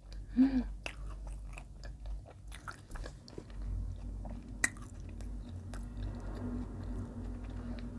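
Close-miked chewing and biting of a soft white-bread sandwich spread with speculoos and crunchy Ovomaltine spread: wet mouth clicks and small crunches, with one sharper click a little past halfway. A short hummed "mm" comes about half a second in.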